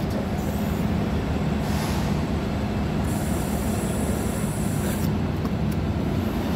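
Diesel fuel nozzle pumping into a pickup's tank, over a steady low hum, with a high hiss for about two seconds in the middle.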